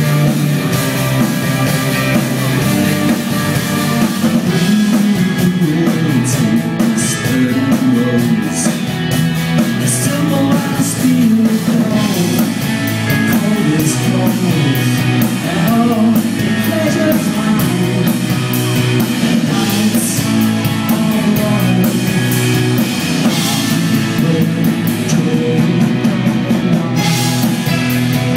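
Live rock band playing loudly: sung lead vocals over electric guitar, bass and a drum kit with cymbals.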